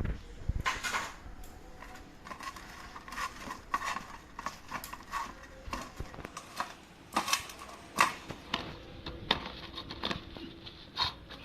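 Eggplant pieces being mixed by hand with salt and turmeric in a dish: irregular soft clicks, knocks and rustles of the pieces against each other and the dish.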